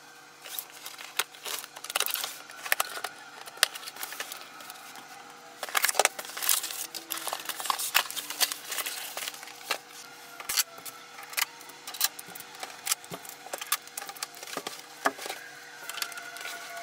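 Cardboard box and packaging of an inkjet printer being handled and unpacked: irregular clicks, taps and scrapes of cardboard and plastic, with a faint steady hum underneath.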